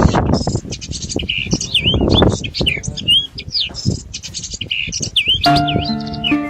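Birds calling: clear whistles that swoop down and back up, mixed with quick dry chattering notes. Music comes in about a second before the end.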